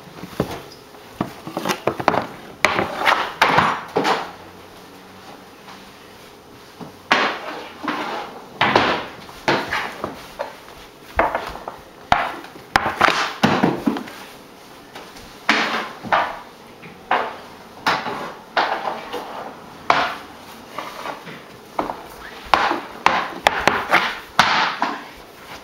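Hockey stick blade knocking and tapping on a hardwood floor in quick clusters of hits with short pauses between them, as someone stickhandles indoors.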